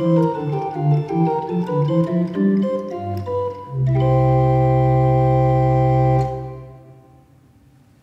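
Continuo (chamber) organ with stopped wooden pipes playing a passage of moving notes, ending on a full chord held for about two and a half seconds. The chord cuts off and its echo in the church dies away within about a second.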